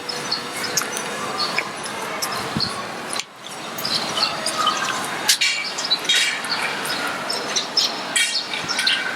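Birds chirping over a steady background hiss, with a brief dip in the sound about three seconds in.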